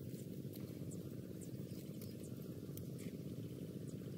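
Steady low outdoor rumble with a few faint, scattered light clicks and taps from handling a small fish on a split-bamboo skewer and setting it down on banana leaves.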